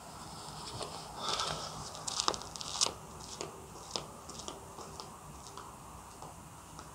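Footsteps crunching on gravelly ground at a walking pace, loudest early on and growing fainter as the walker moves away.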